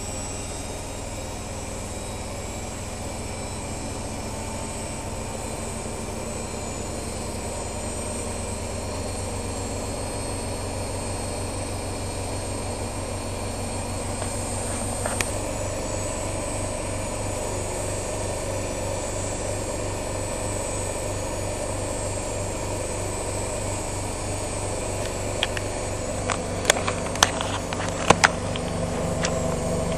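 Privileg Sensation 9415 washing machine running with a steady motor hum that slowly grows louder. A sharp click comes about halfway through, and a quick run of clicks and knocks follows near the end.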